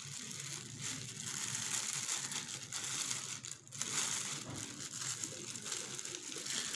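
Thin clear plastic polythene bag crinkling and rustling as hands handle it, with a brief pause a little past halfway.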